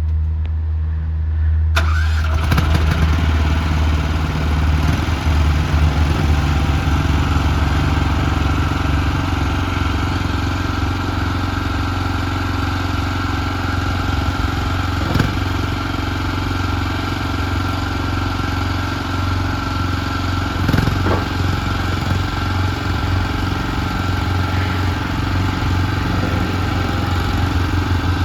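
Mini skid steer loader's engine starting about two seconds in, then running steadily with a constant high-pitched whine over the engine note and a couple of brief knocks.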